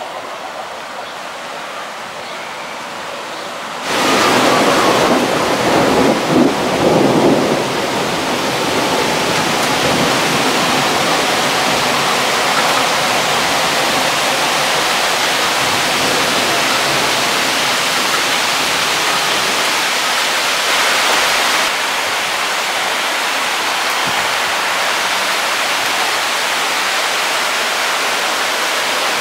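Heavy thunderstorm rain falling as a steady hiss. About four seconds in it suddenly becomes much louder, with a few seconds of rumbling before it settles into a steady downpour.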